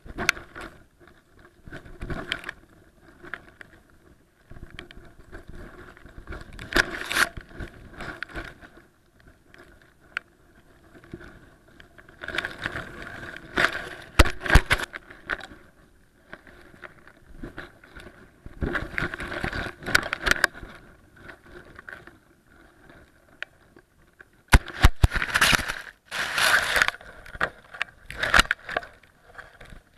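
Wind rushing and kite fabric rustling against an action camera mounted on a large kite. The noise comes in irregular gusts a few seconds long as the camera shakes.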